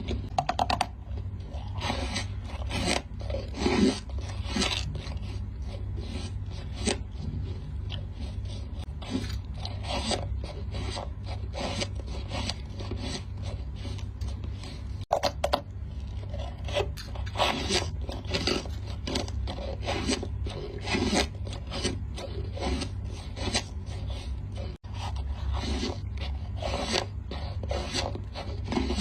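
Repeated short scraping and rubbing strokes, a few of them squeaking briefly, over a steady low hum.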